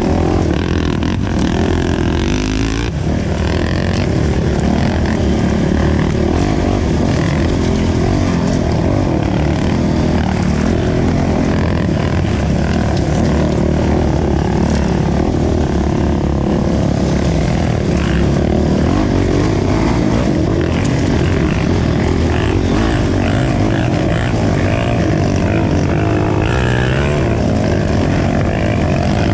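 Dirt bike engine running continuously under way on a trail, heard from on board the bike, loud and steady with small rises and falls in engine speed.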